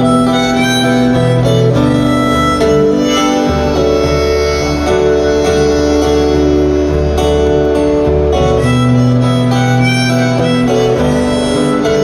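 Live band playing an instrumental passage of a folk-rock song: a harmonica holds long notes over guitar, keyboard and a steady bass line.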